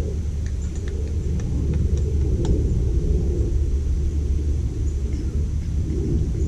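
Steady low background rumble, with several light clicks of small parts and screws being handled during the first two and a half seconds.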